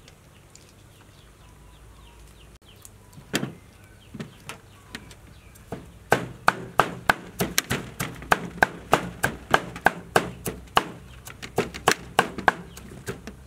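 Knife cutting through peeled wax gourd on a metal tray. Sharp, regular strikes about three a second start about halfway through, after a single stroke a few seconds earlier.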